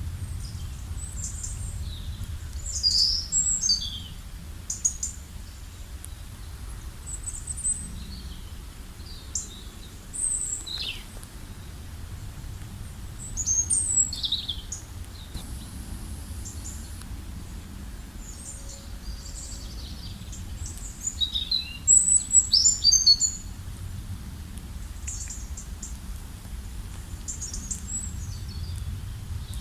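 Several birds chirping and calling in short, high-pitched phrases, some sweeping downward, with busier flurries about three seconds in, near the middle and about two-thirds through. A steady low rumble runs underneath.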